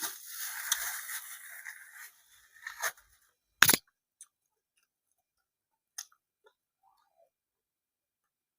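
A person chewing food close to the microphone, crunching for about two seconds. A single loud, sharp click comes a little past halfway through, and a fainter one follows later.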